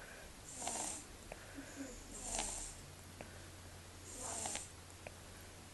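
Sleeping baby snuffle snoring through a nose blocked by a cold: three soft, hissy snores about two seconds apart.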